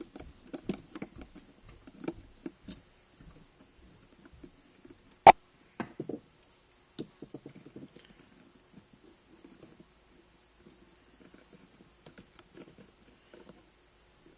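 Small scratchy clicks and ticks of a screwdriver working the bail-arm screw on a spinning reel and of the reel being handled, with one sharp click about five seconds in.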